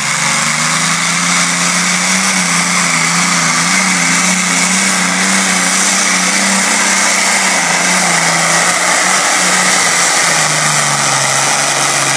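Supercharged Allison V12 aircraft engine in a modified pulling tractor running flat out under load as it drags the weight sled. A loud, steady drone whose pitch wavers a little and sags slightly near the end.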